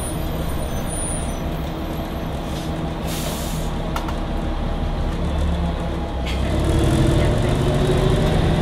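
Volvo Olympian double-decker bus heard from inside the upper deck: its diesel engine idles at a stop, with a short hiss of air about three seconds in. From about six seconds in the engine gets louder and rises in pitch as the bus pulls away.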